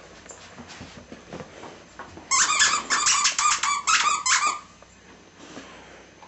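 Squeaker in a plush snake dog toy squeaking rapidly under a Labrador puppy's chewing. A burst of about a dozen quick, loud squeaks starts a couple of seconds in and lasts about two seconds, with faint chewing and rustling around it.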